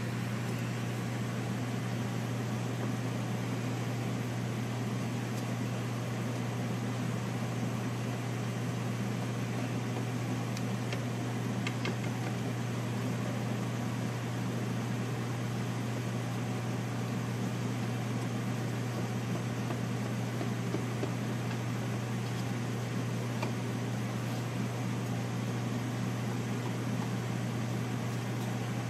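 Steady hum of a running kitchen fan or appliance motor: a constant low drone under an even hiss.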